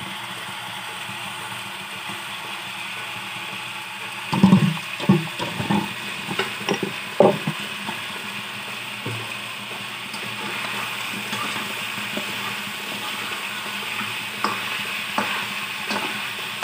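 Chicken pieces sizzling in a frying pan, a steady hiss. A few loud knocks and clatters come about four to seven seconds in, with lighter taps near the end.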